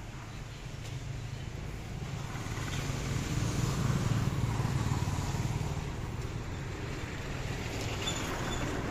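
A road vehicle going by, rising to its loudest about four seconds in and then fading, over a steady low hum.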